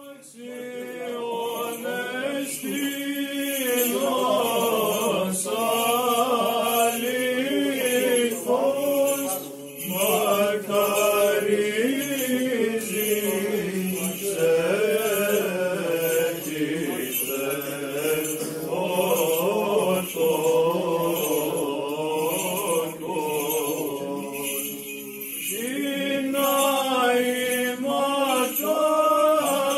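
Orthodox church chant: voices sing a slow, melodic line in long held phrases, with a brief dip a little before the end.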